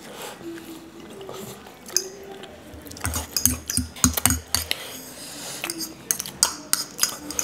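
Metal spoons clinking and scraping against small ceramic bowls while two people eat. There are a few light clinks at first, then a busy run of clinks from about halfway through.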